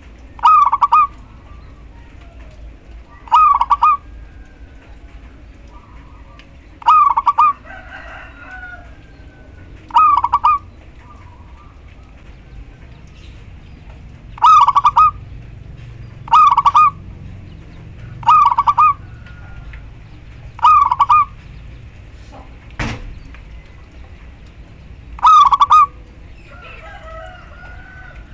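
Female zebra dove (perkutut) calling: a short warbling coo repeated nine times, each about half a second long, at uneven gaps of two to four seconds. A single sharp click comes about two-thirds of the way through.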